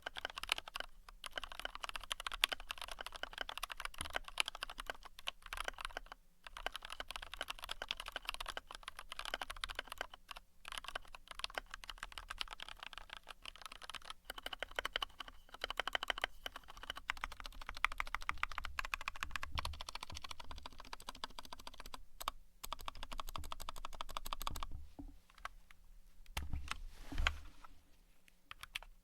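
Fast, continuous typing on a 60% mechanical keyboard with red linear switches: a dense stream of key clacks with a few brief pauses. It thins out near the end, with a couple of heavier low thumps.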